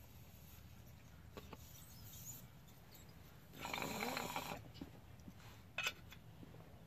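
Bong water bubbling for about a second midway as a hit is pulled through it, followed by a sharp click near the end.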